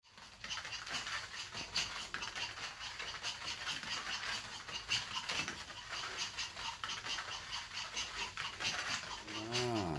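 Dogs crunching dry kibble, a dense run of rapid irregular crunches and clicks. Near the end there is one short vocal sound that falls in pitch.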